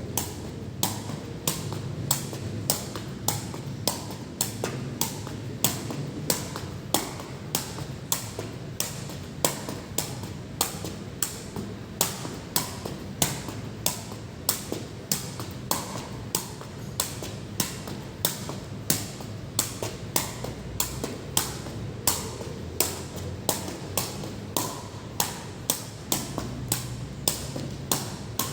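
Water dripping steadily onto a hard surface: sharp taps about one and a half a second, over a low steady rumble of rain.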